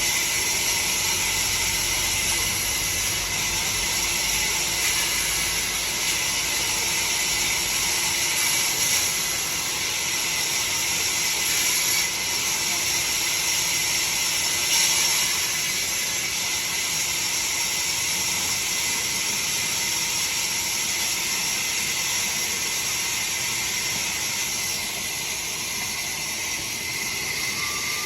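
Steady high-pitched hiss at an even level throughout, with no clear strokes or rhythm.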